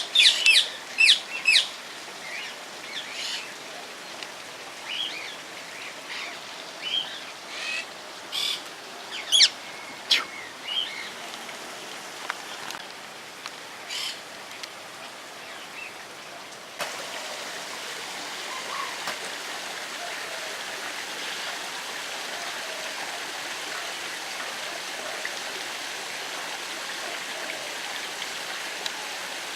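Shrill bird calls, several in quick succession at first and then scattered, over a low background. About halfway through the sound changes abruptly to a steady rush of running water with a few faint calls.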